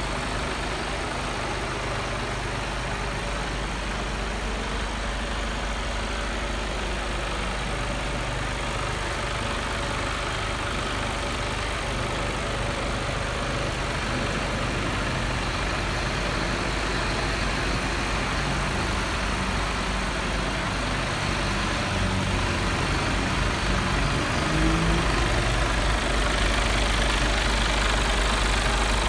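Mercedes Actros 1845 LS's 12.8-litre inline-six diesel engine idling steadily, growing slightly louder over the last few seconds.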